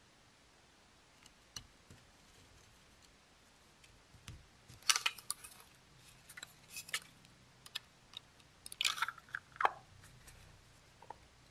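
Plastic case of a Kill A Watt P3 power meter being handled and fitted back together: scattered sharp clicks, taps and short scrapes, busiest from about five to ten seconds in.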